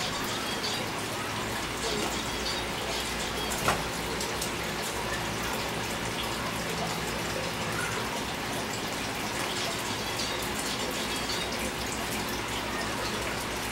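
A steady hiss like running water, with a low hum under it and one short click a little under four seconds in.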